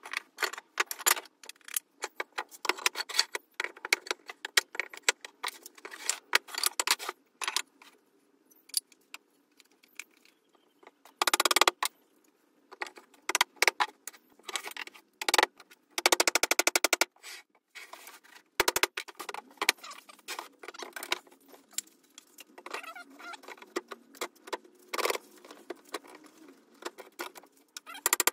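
Timber frame parts knocking and clattering as mortise and tenon joints are pushed together in a dry fit, a long run of separate sharp knocks with a couple of rapid rattling runs. Near the end a wooden mallet taps the joints home.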